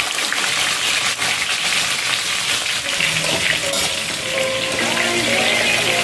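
Hot oil sizzling steadily as flour-dredged red snapper fry in a cast-iron skillet. In the second half a metal spoon stirs sliced onions and carrots in a stainless-steel pan.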